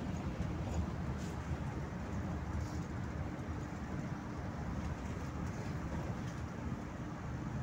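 Cabin noise inside a moving PAZ 4234-05 bus: a steady low rumble of engine and road noise, with a few faint rattles.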